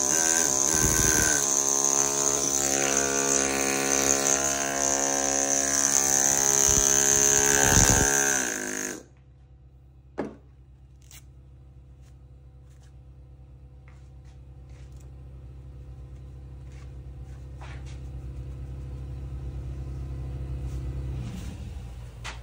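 Pneumatic carving hammer driving a steel chisel into marble: a loud, steady buzzing that cuts off about nine seconds in. After it, a low steady machine hum with a few faint ticks, which stops near the end.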